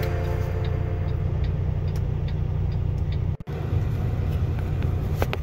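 Steady low rumble of a semi-truck's diesel engine idling, heard from inside the cab, broken off briefly about three and a half seconds in.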